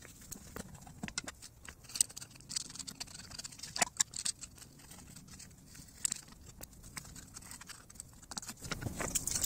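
Scattered clicks, taps and light scrapes of hand tools working on a scooter engine, with a few sharper knocks about two and four seconds in; the engine is not running.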